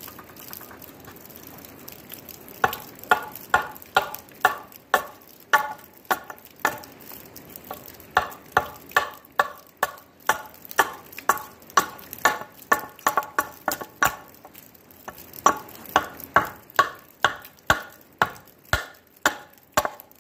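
Hatchet chopping down a bitternut hickory bow stave to rough out the bow: sharp strikes about two a second, in runs with short breaks, as wood is split away.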